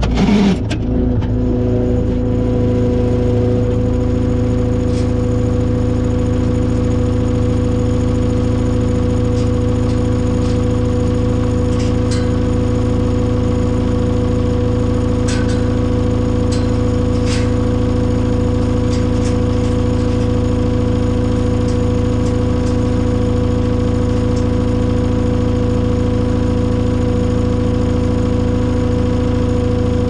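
John Deere 675B skid steer's diesel engine running at a steady, unchanging speed. A few faint clicks and clanks come through in the middle.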